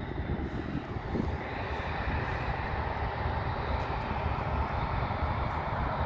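Jet engines of a Ryanair Boeing 737 on its takeoff roll: a steady roar with a thin whine through it, growing fuller and louder about a second and a half in.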